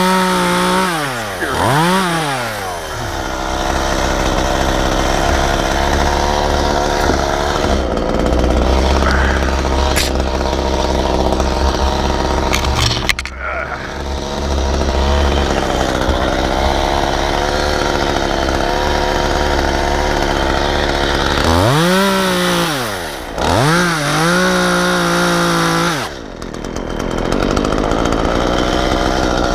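Two-stroke chainsaw running at high speed as it cuts, blipped up and down in quick revs near the start and again about three-quarters of the way through, with a couple of brief drops in speed.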